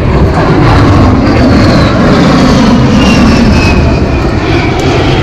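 Aircraft flying past, its engine noise loud and steady, with a high whine that falls in pitch as it goes by.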